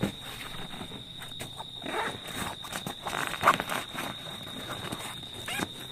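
Hands rubbing and patting a thick-padded cordura rifle bag: irregular fabric rustling and brushing, loudest about three and a half seconds in.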